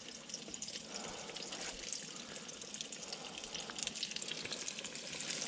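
Battered fish fillets frying in hot oil: a steady sizzle with fine crackles.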